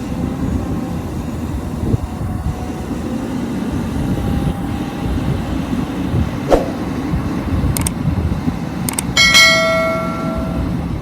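XCMG XE215C excavator's diesel engine running steadily, with a few sharp metal clanks. About nine seconds in comes a loud metallic clang that rings on for about a second, like struck steel.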